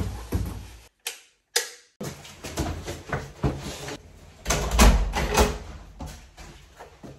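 An apartment's wooden front door being shut and locked: knocks and clicks from the handle and lock, with a heavy thump about halfway through, after a suitcase is pulled through the doorway at the start.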